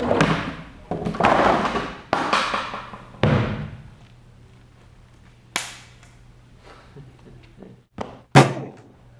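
Staged comic blows: a flurry of noisy thumps in the first few seconds, a quieter stretch with a low hum, then a sharp smack about halfway and two hard hits near the end, the last the loudest.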